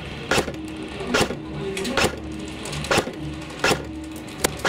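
Airsoft gunfire: six sharp single shots, about one every 0.8 s, over background music with a low bass line.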